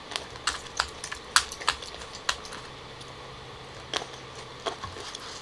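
Crisp green grapes being chewed close to the microphone: a run of irregular sharp crunchy clicks over the first couple of seconds, with another near the end.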